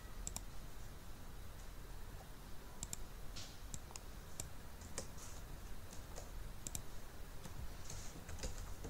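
Faint, scattered computer mouse clicks and keyboard key presses, a dozen or so irregular clicks over a low steady hum.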